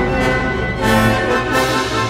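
Orchestral background music with brass, playing held chords.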